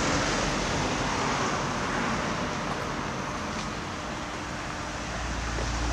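Steady road traffic noise, an even rushing hiss that eases a little in the middle and swells again near the end.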